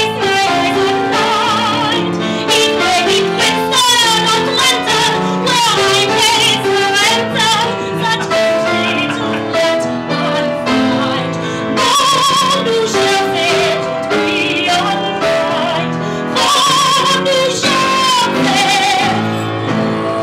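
A woman singing a show tune in a bright, operatic style with wide vibrato, accompanied by a grand piano; she holds long notes about halfway through and again near the end.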